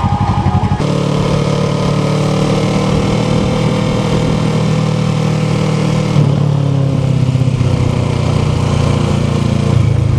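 Kawasaki Ninja 650R parallel-twin engine idling with an even pulsing beat, then pulling away about a second in and running steadily under way. The engine note changes again about six seconds in.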